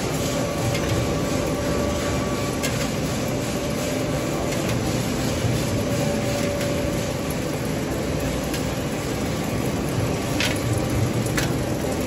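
Cable tray roll forming machine running as perforated steel tray passes through its forming rollers: a steady mechanical rumble with a faint constant hum and a few light clicks.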